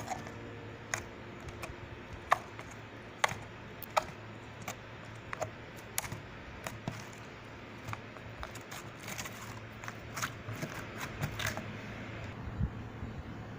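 Irregular sharp clicks and taps, spaced about a second apart at first and coming faster near the middle, over a faint steady low hum.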